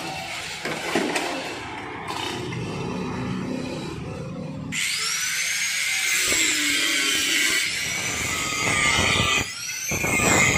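Handling noise from the rusted steel Vespa scooter body, scraping and knocking, then about halfway through a small angle grinder starts grinding into the rusted steel floor panel. It makes a loud hiss with a whine that dips as the disc bites and recovers, cuts out briefly near the end, then starts again.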